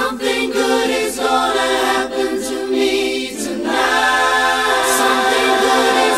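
Layered a cappella vocal harmonies: several voices singing sustained chords that shift every second or so, with no drums or bass underneath.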